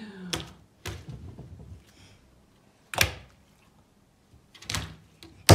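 Slime being slapped and squashed against a tabletop by hand: about five sharp, separate slaps, the loudest near the end.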